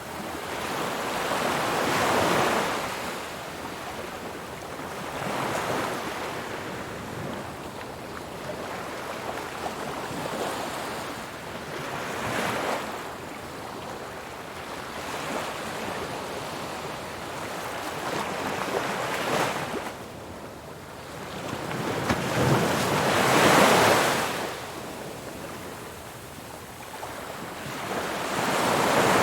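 Ocean surf: waves breaking and washing in, in slow surges of noise a few seconds apart, with the loudest wave about three-quarters of the way through.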